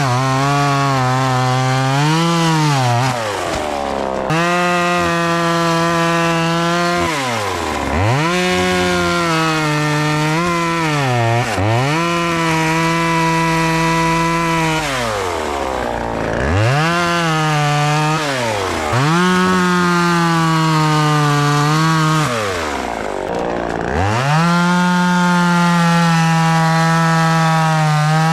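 Vevor 12-inch 25cc two-stroke top-handle chainsaw running at high revs, its pitch dropping steeply and climbing back again and again, about every three seconds, as the throttle is let off and opened again.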